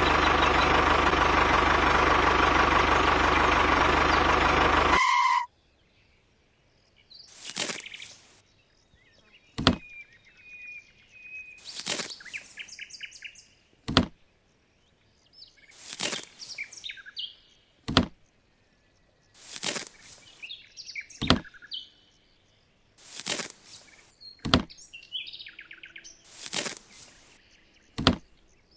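A loud, steady electric-motor drone from a toy tractor cuts off suddenly about five seconds in. After that a hand handles miniature cauliflowers: about every four seconds there is a short rustle and then a light click as a cauliflower is dropped into a small plastic trolley. Faint bird chirps can be heard in the background.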